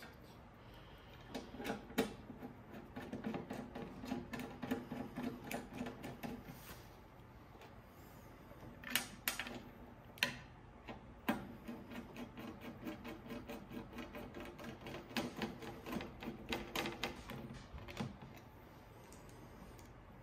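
Screws being driven into a cassette deck's case and wooden side cheeks with a screwdriver: two spells of several seconds of rapid, regular clicking with a buzzing tone, and a few sharp knocks around the middle.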